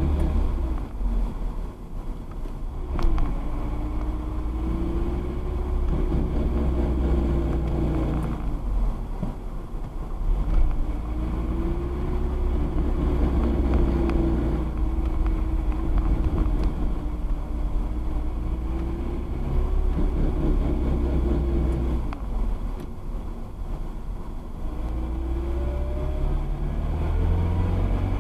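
Audi A4 B5 1.8T driveline grinding on deceleration with the clutch engaged, over the car's engine and road rumble. A droning tone rises and falls in four stretches of a few seconds each. The owner later traced it to a worn driveshaft centre bearing, and replacing the bearing cured it.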